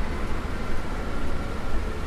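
City street traffic noise: a steady low rumble and hiss of cars on a wet road.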